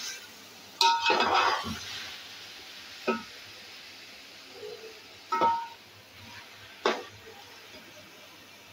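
Metal slotted spoon stirring diced potatoes in a metal cooking pot: about five clanks and scrapes against the pot, each with a short metallic ring, the loudest cluster about a second in, over a faint frying hiss that dies away.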